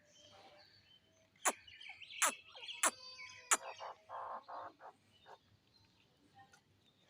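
Birds calling outdoors: four sharp, short notes in quick succession from about one and a half seconds in, mixed with a few harsher, rasping notes, then fading out.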